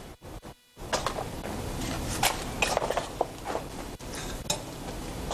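Metal hand scoop scraping and knocking in a wheelbarrow of fresh concrete as it is scooped out, a busy run of irregular scrapes and clinks that starts about a second in.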